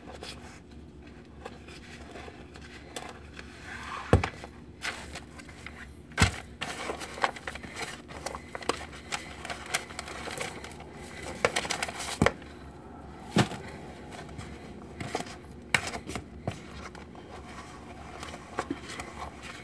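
Wooden spoon stirring stiff, dry cookie dough in a plastic mixing bowl: soft irregular scraping with scattered knocks of the spoon against the bowl, a few of them sharper and louder.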